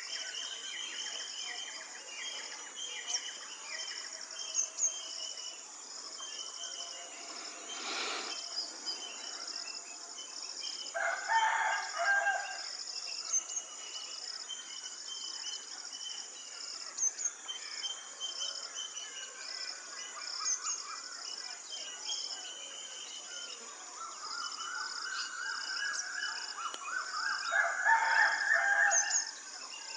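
Rural ambience: a rooster crows twice, about a third of the way in and again near the end, over a steady chorus of crickets and small bird chirps.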